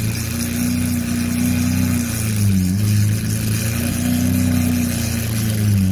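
Lamborghini Aventador's V12 engine running at low revs as the car creeps away, its note steady apart from two brief sags in pitch.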